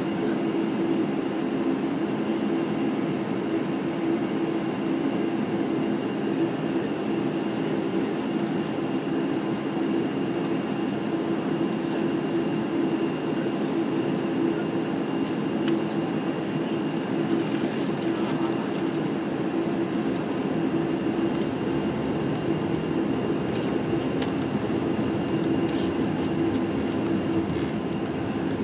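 Boeing 747-8i cabin noise while taxiing: the GEnx engines running at low taxi power, heard inside the cabin as a steady low hum with a faint high whine.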